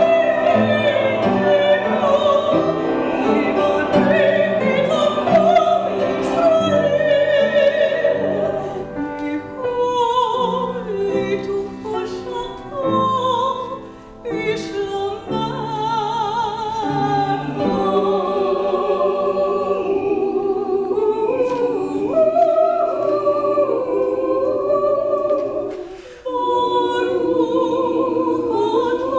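Small mixed choir of men's and women's voices singing a classical-style choral piece with upright piano accompaniment. The music drops away briefly about 14 seconds in and again near 26 seconds.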